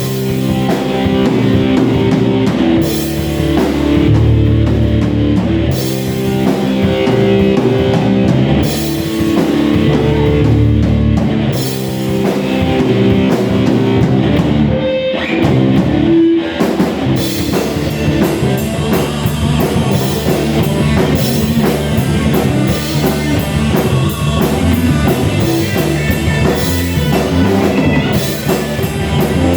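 Rock band playing an instrumental passage of electric guitar, bass and drum kit, with a brief break about halfway through.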